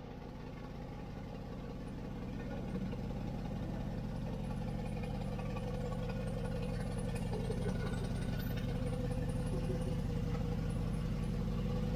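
Mercedes-AMG G63's twin-turbo V8 idling steadily through a TNEER full exhaust system, a low even hum that slowly grows louder.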